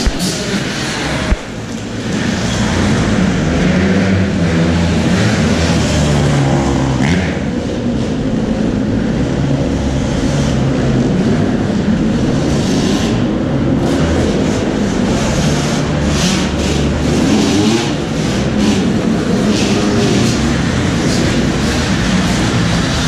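Motocross dirt bikes running and revving as they ride and jump the track inside an enclosed hall, the engine notes rising and falling continuously. A single sharp knock about a second in.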